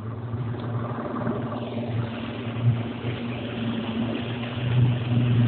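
Motor boat's engine running steadily with a low hum, and a rushing hiss joining in about a second and a half in.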